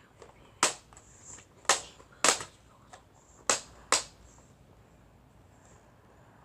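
Sharp plastic clicks from a Nerf N-Strike Elite Surge Fire blaster being handled: five loud clicks within about four seconds, with a few fainter ones between, as someone tries to unload it.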